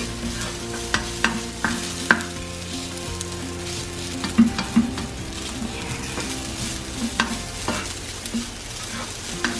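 Garlic fried rice frying with a light sizzle in a nonstick pan while a plastic spoon stirs and presses the rice to break up clumps. The spoon knocks and scrapes against the pan now and then.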